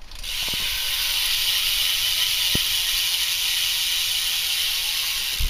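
Primo Mix rear hub on a BMX bike, its freewheel ratchet clicking so fast that it blends into a steady, pretty loud buzz as the rear wheel spins freely.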